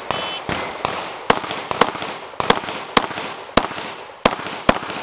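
A shot-timer start beep, then a Glock 26 subcompact 9mm pistol firing a string of about seven shots at a steady pace, roughly one every half second. Fainter gunshots are mixed in among them.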